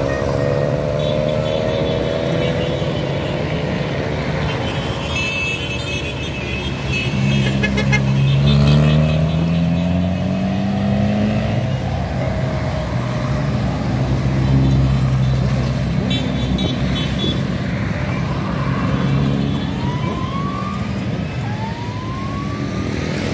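A group of motorcycles and cars driving past on the street, engines running steadily with some riders revving up, the pitch rising several times.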